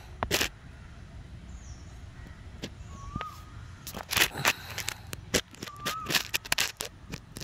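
Outdoor ambience with birds: a short whistled note that rises then drops comes twice, among irregular sharp clicks and short harsh noisy sounds, loudest about four seconds in.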